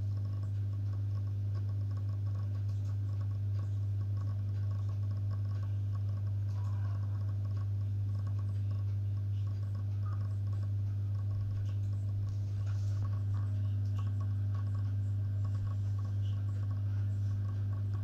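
Steady low electrical hum of running aquarium equipment such as a pump, unchanging throughout, with a few faint scattered ticks.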